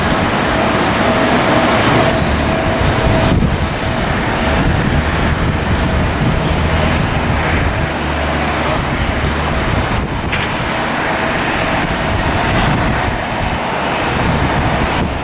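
Jet airliner engines running, with a steady whine in the first few seconds, mixed with gusty wind noise on the microphone.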